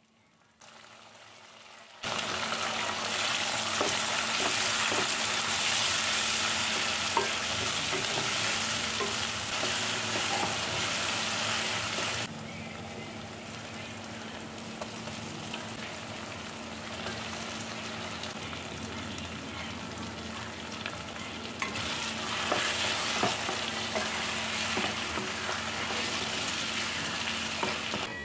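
Onion-tomato masala with dried red chillies frying in oil in a pan, stirred with a spatula, with a steady sizzle. The sizzle begins about two seconds in, drops off about twelve seconds in, and grows louder again near the end, where raw chicken pieces are being stirred into the hot pan with a wooden spatula.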